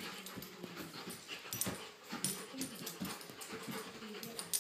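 Young Old English Sheepdog making short whining sounds while spinning after its tail, mixed with quick scuffling clicks.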